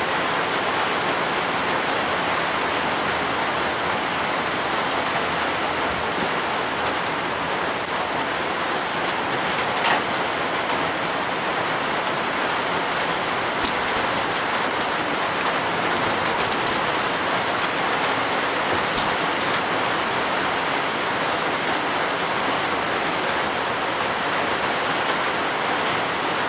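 Steady, even hiss, with a few faint light clicks scattered through it.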